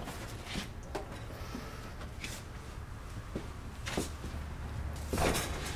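Dometic RV absorption refrigerator cabinet being rocked side to side while lying on its back, giving a handful of light knocks and creaks, the loudest near the end. The rocking works the ammonia-water solution into the cooling unit's boiler so it won't run dry at start-up.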